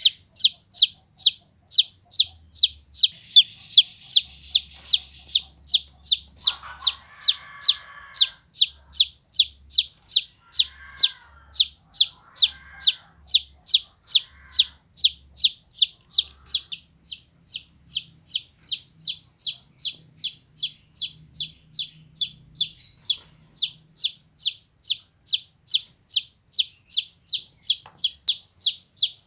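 A golden chick peeping loudly and without a break, a steady run of short, falling peeps at about three a second. A brief burst of hissing noise comes about three seconds in.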